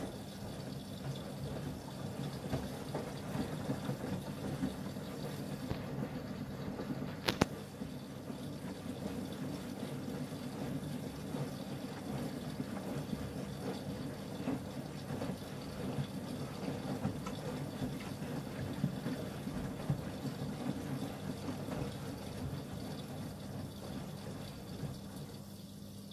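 Miele W1 WKF 130 front-loading washing machine mid-cycle: water running and splashing inside the machine over a steady hum, with a single sharp click about seven seconds in. The watery sound dies down near the end.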